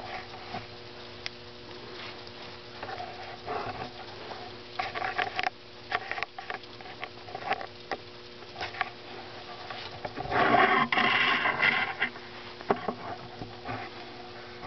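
Small homemade steam engine running off a spray-can boiler, with irregular puffs, spits and clicks as steam and water escape from its valve. A louder noisy burst lasts about two seconds, starting about ten seconds in, over a faint steady hum.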